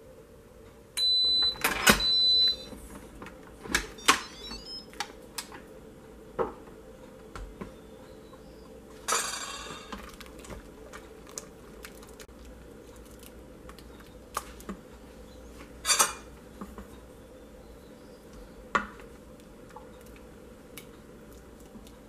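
An Instant Pot electric pressure cooker gives a high electronic beep lasting about a second and a half, starting about a second in. After that come scattered clinks and knocks of a plastic ladle against the stainless steel inner pot as the cooked soup is stirred, with a short rushing noise near the middle.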